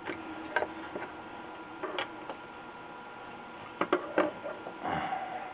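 Scattered light clicks and taps from a circuit board being handled and its solder joints worked with a soldering iron to pull old electrolytic capacitors, over a faint steady hum.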